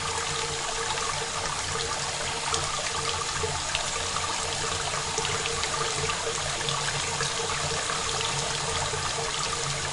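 Steady rain: a dense, even patter of drops, dry and close without reverb.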